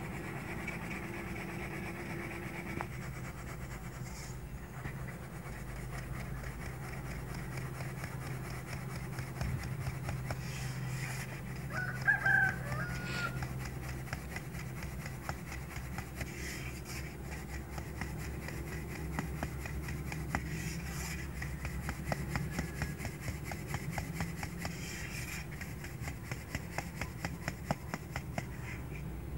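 Wheat flour being sifted through a metal sieve: faint rapid rattling and ticking of the sieve, with a steady low hum underneath. About twelve seconds in, a chicken calls briefly, the loudest sound.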